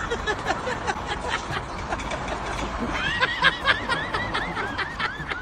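A person laughing in quick, high-pitched giggles from about three seconds in, over scattered knocks and rattles.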